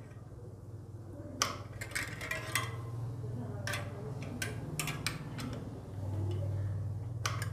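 Irregular metallic clicks and clinks of an Allen key working the pad-adjustment screw on a bicycle's cable-operated disc brake caliper, setting the inner pad's clearance to the rotor. A steady low hum runs underneath.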